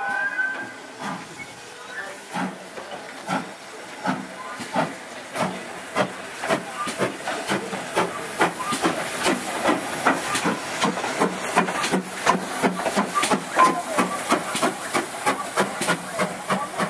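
GWR 2-6-2 prairie tank locomotive 5542 pulling away from a stand under steam, its exhaust chuffs starting slow and quickening steadily to about three a second, with steam hissing throughout.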